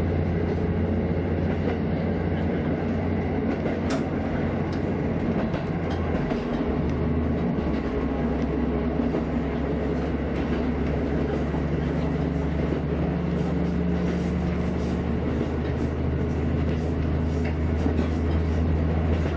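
KiHa 54 diesel railcar under way, heard from inside its rear driver's cab: a steady low diesel engine drone with the rumble of the wheels on the track. The low drone shifts about six seconds in.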